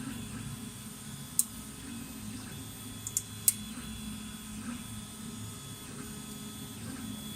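MD-6C FDM 3D printer running, its motors giving short whining tones that start and stop as the moves change, over a steady low hum. A few sharp clicks come about a second and a half in and in a quick cluster around three seconds in.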